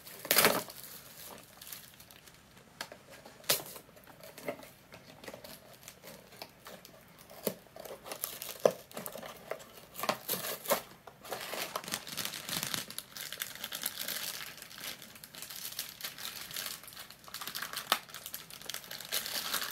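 Small cardboard blind box being torn open by hand, with scattered sharp rips and snaps. About halfway through comes a denser, steady crinkling as the foil bag inside is handled and pulled open.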